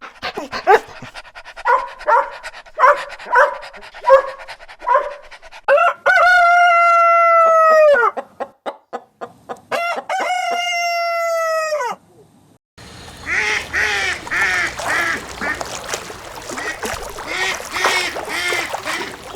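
Chickens clucking in short calls about once a second, then a rooster crowing twice, each crow about two seconds long and dropping at the end. After a break, a flock of fowl calls over and over against a steady rush of background noise.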